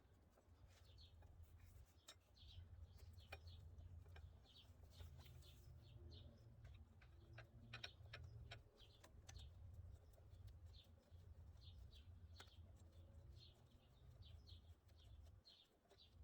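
Faint birds chirping repeatedly in the background, over a low steady hum, with scattered light clicks.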